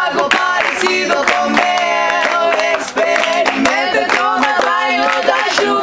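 Women's voices singing in harmony, holding long notes, with rhythmic clapping keeping the beat.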